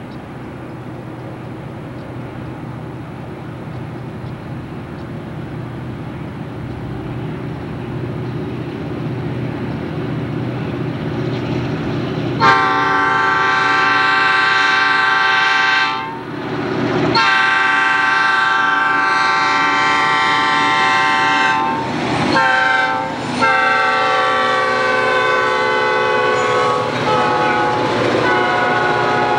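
Diesel locomotive engines of an approaching freight train growing steadily louder, then the lead locomotive's multi-note air horn sounding the grade-crossing signal from about twelve seconds in: two long blasts, a short one, and a final long blast.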